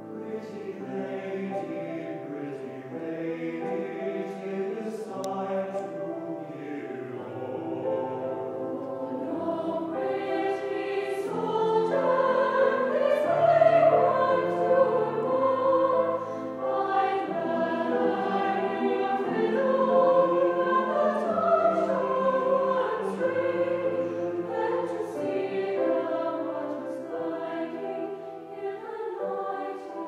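Mixed choir singing a classical piece in sustained chords, accompanied by violins and piano. It grows louder to a peak about halfway through, then eases off.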